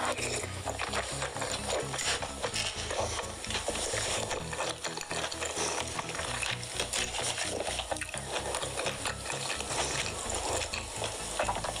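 Mukbang eating of whole roast chicken by hand: chewing, tearing meat off the bone and lip smacking close to the microphone, a dense run of small wet clicks and crackles.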